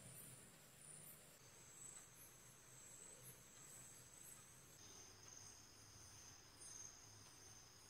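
Faint, high-pitched cricket chirping over near silence; the chirping steps lower in pitch twice.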